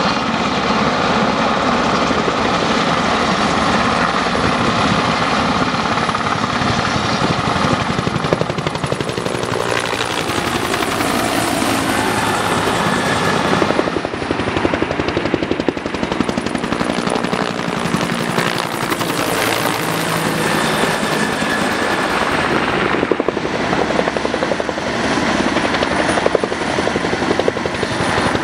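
Military helicopters, a UH-1 Huey and a UH-60 Black Hawk, flying low with fast, steady rotor chop. The sound changes abruptly about 14 and 23 seconds in.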